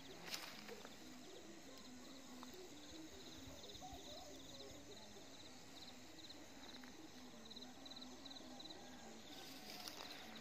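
Faint night chorus of crickets chirping in rapid pulsed trills, with lower repeated pulsing calls beneath.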